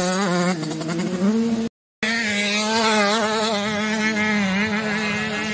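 85cc two-stroke motocross bike engine racing, its pitch rising and falling as the throttle is worked. The sound drops out for a moment a little under two seconds in.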